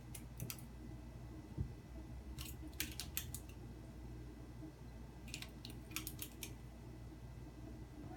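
Plastic being batted about by a cat: three short runs of crisp clicks and crackles, with a dull thump about one and a half seconds in.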